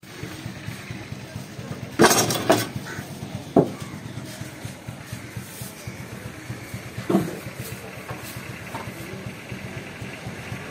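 A few sharp knocks and clatters from things being handled: two loud ones about two seconds in, another a second later and one more midway. Under them runs a steady engine-like hum.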